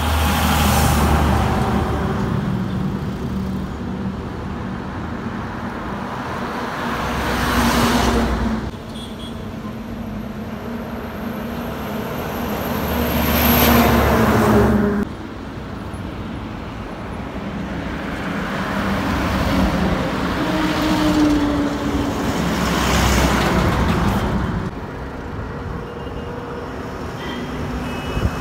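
Heavy diesel lorries passing one after another on a highway: engine drone and tyre noise swell and fade about five times. The loudest pass, about halfway through, is a Tata tractor unit hauling an empty flatbed trailer close by.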